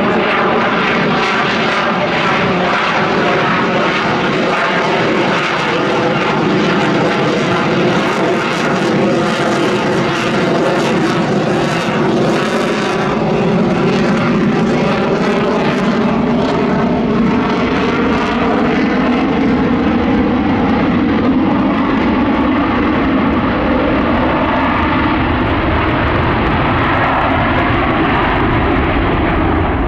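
Boeing F/A-18 Super Hornet's twin F414 turbofan engines running loud and steady as the jet manoeuvres overhead. The jet noise wavers and sweeps in tone as it moves across the sky, and turns duller after about halfway.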